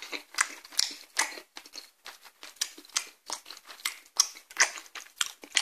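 Close-up mouth sounds of someone chewing a mouthful of penne pasta in tomato sauce: a rapid, irregular series of short clicks and smacks.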